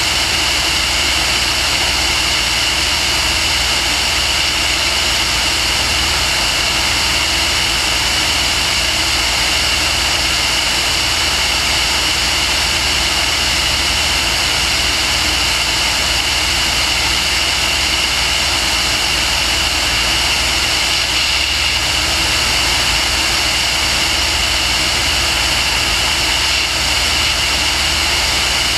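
Small aircraft's engine running steadily, with wind noise rushing past the camera; an even, unchanging drone.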